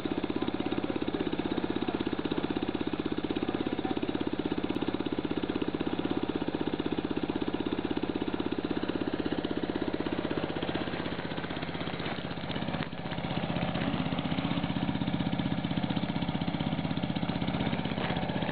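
A small engine idling steadily, with rapid, even firing pulses. It dips briefly about thirteen seconds in and carries on with a slightly changed tone.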